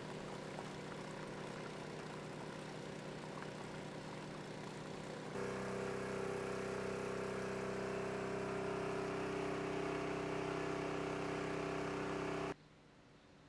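Floodwater pump running steadily, its motor humming as water is pumped out and poured from the discharge pipe. About five seconds in the hum switches abruptly to a louder one of a different pitch, and near the end it drops away suddenly to a much quieter background.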